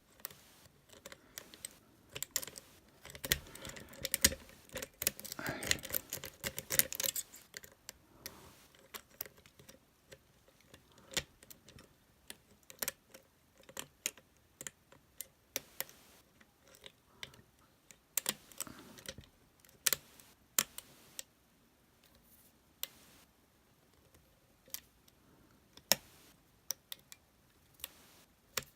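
Lock picks and a tension wrench working the pins of a Master Lock LockOut TagOut padlock: irregular small metallic clicks and scraping, busiest in the first several seconds and then sparser single clicks.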